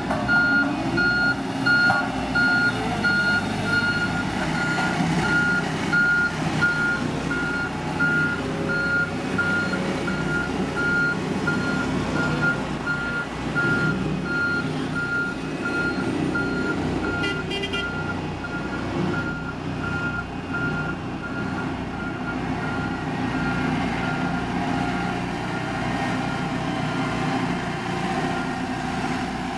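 Backup alarm of a heavy road-construction machine beeping steadily, about two beeps a second, over its diesel engine running.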